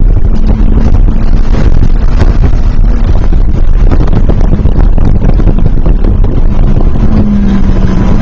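Race car under way, heard from an onboard camera in the cockpit: a very loud, dense engine and wind noise with a faint steady low engine tone.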